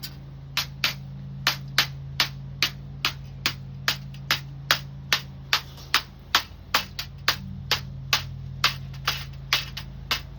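Light, even hammer taps, about two to three a second, as metal spline is gently tapped into the channel of a window screen frame. A steady low hum runs underneath.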